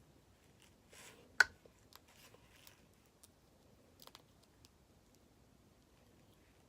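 Snow crab shells being cracked open: faint scattered clicks and short rustles, with one sharp snap about a second and a half in.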